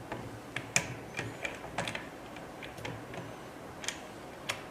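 Irregular light clicks and taps, about eight of them, as a 3D printer's Z-axis pillar and bolt are handled and fitted into the printer's base.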